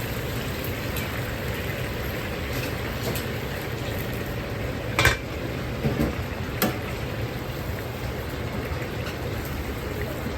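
Cooking in a restaurant kitchen: a steady hiss over a low rumble, with three sharp clinks of metal utensils against pans around the middle, the loudest about five seconds in.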